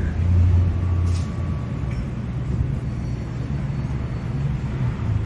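Steady low rumble of a running vehicle, strongest in the first second.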